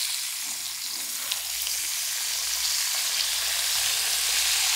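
Chilsung Cider, a carbonated lemon-lime soda, poured from a plastic bottle onto watermelon balls in a hollowed-out watermelon, fizzing with a steady hiss and small crackling pops that grows a little louder near the end.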